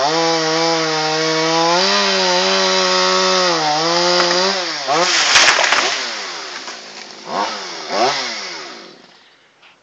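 Chainsaw cutting wood at high revs, its pitch dipping and recovering as the chain bites. About five seconds in there is a sharp knock, then the throttle is let off. Two brief revs follow before the saw winds down to quiet.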